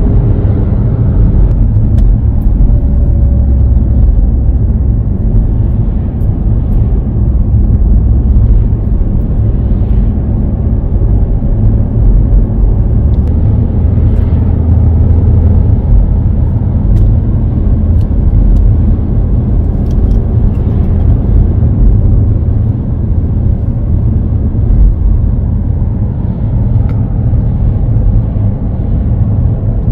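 A car driving on the road, heard from inside: a loud, steady low rumble of road and engine noise.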